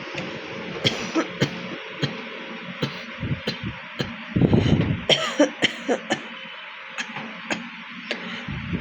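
Repeated short coughs and throat clearing from someone with a bad cold, the loudest and longest bout about halfway through.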